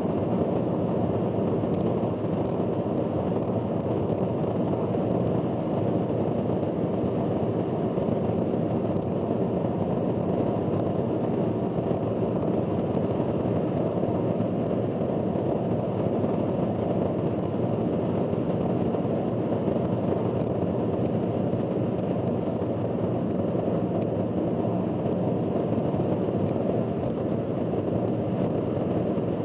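Steady, loud road and engine noise of a car driving on an expressway, picked up by an in-car dashcam. The uploader warns that this recording carries a loud abnormal noise. Faint short ticks are scattered through it.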